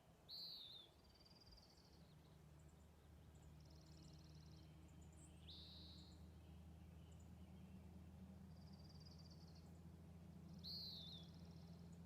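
Birds calling faintly: short down-slurred and up-slurred chirps and a few buzzy trills, one every second or two, over a faint steady low hum.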